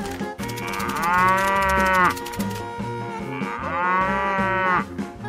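A cow mooing twice, two long calls a second or so apart, each rising and then falling in pitch, over background music.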